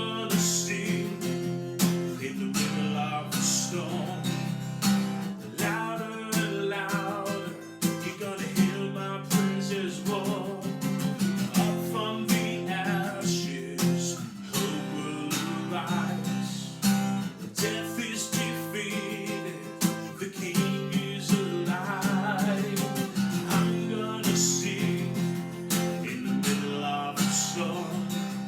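Music: a strummed acoustic guitar playing steady, rhythmic chords.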